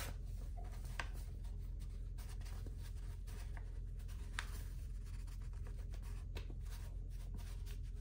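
Paper flour bag crinkling and rustling as flour is poured from it into a mug, with a few faint ticks over a steady low hum.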